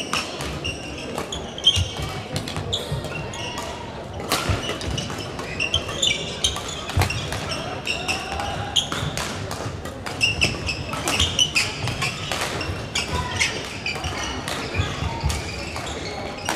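Badminton doubles rally: rackets hitting the shuttlecock in a run of sharp cracks at irregular spacing, with court shoes squeaking on the wooden floor, echoing in a large hall.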